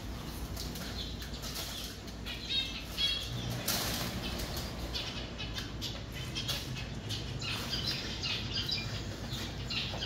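Small aviary finches, zebra finches among them, fluttering their wings as they fly about, with short high chirping calls now and then.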